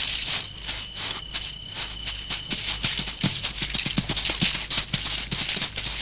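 Rapid, irregular scratching and rustling clicks as a grey (desert) monitor lizard thrashes on sand with a snake in its jaws. A thin steady high tone sounds under them until about halfway. After that the scratching turns denser and louder, with a few soft knocks.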